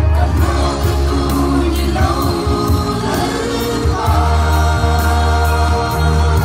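Gospel song played live through a PA: a woman sings lead with other voices joining in, over a heavy bass line and a steady drum beat.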